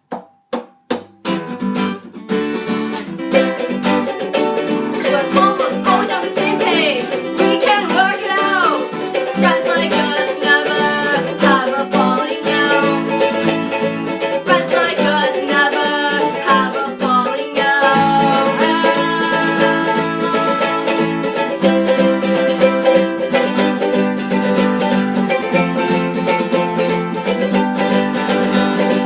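A band's song opening: a few sharp clicks in the first second, then full music led by plucked string instruments with a steady beat and some gliding notes.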